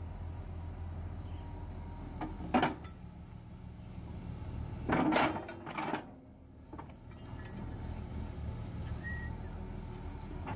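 Excavator diesel engine running with a steady low hum, broken by metal clanks: one sharp clank about two and a half seconds in and a short cluster of clanks around five seconds in.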